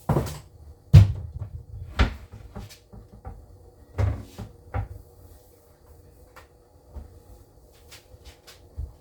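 Sharp knocks and clunks of someone working in a kitchen, the loudest about a second in. The knocks come roughly a second apart at first, then thin out into lighter taps and clicks after about five seconds.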